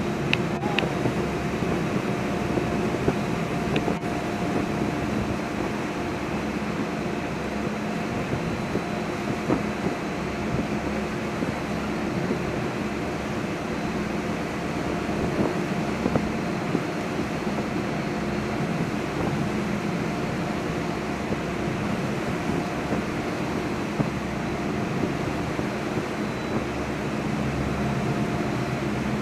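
Steady drone of a ship's engines and machinery under way at sea: several steady low hums over an even noise.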